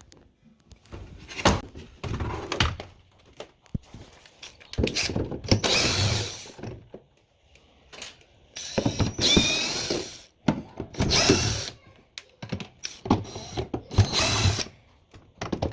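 Electric drill-driver running in several short bursts, its pitch rising and falling, with clicks and knocks between bursts: screws being driven out while taking the washing machine apart.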